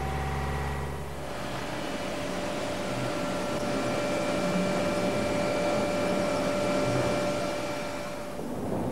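Steady machine hum with a few thin, high, steady whining tones over it. The sound changes about a second in, from a low droning hum to a noisier whir, and dips near the end.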